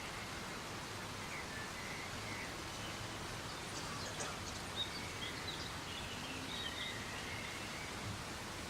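Steady soft rain falling in a forest, an even hiss, with faint bird chirps in the background and a few sharper ticks about four to five seconds in.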